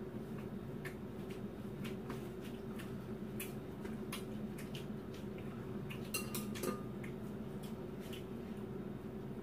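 Chopsticks and utensils clicking against bowls and a pot, with a short run of louder ringing clinks a little past the middle, over a steady low hum.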